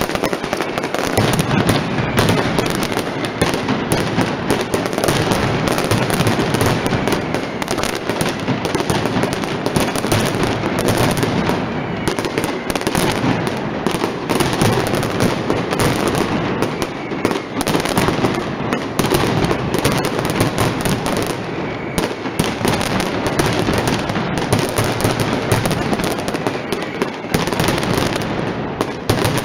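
Mascletà firecracker barrage: a dense, continuous crackle of rapid bangs from strings of firecrackers, loud and unbroken, with a faint whistle gliding up now and then.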